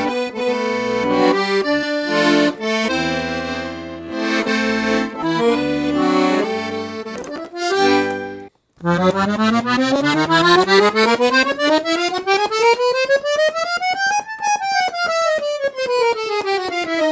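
Black Parrot piano accordion with a three-reed LMM treble and 120-button bass, played: chords over low left-hand bass notes for about eight seconds, a brief stop, then a steady scale run up the treble keyboard and back down.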